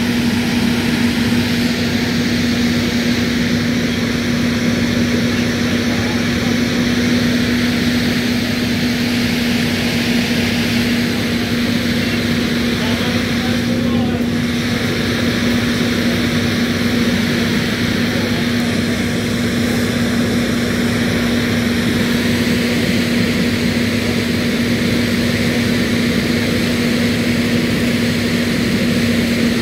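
Engine of firefighting equipment running steadily: a loud, constant drone with a single unchanging hum.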